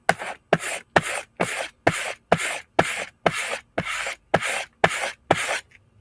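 A knife blade is drawn edge-trailing across a cardboard strop in quick, even strokes, about two a second, each a short scrape. A small burr still left on the edge gives a slight clicking. The strokes stop shortly before the end.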